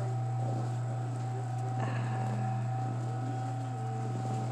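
Steady low electric hum with a faint, even whine above it, from a running machine.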